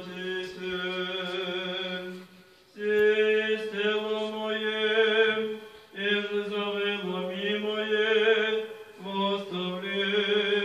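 Eastern Orthodox liturgical chant, sung unaccompanied in long held phrases with short breaks between them and a slight waver on the held notes.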